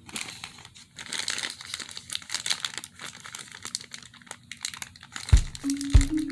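Plastic toy packaging crinkling and tearing as it is handled and opened. About five seconds in, music with a steady beat comes in.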